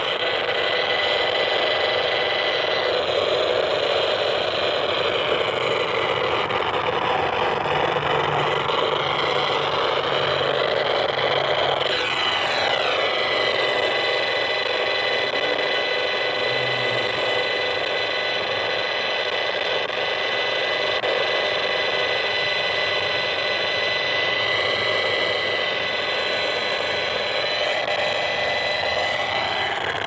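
Audio output of an HF35C RF analyser held near a cell tower antenna: a loud, steady hiss with a thin high whistle, its tone colour sweeping slowly up and down, the sound of the strong cell-tower signal that has the meter pegged.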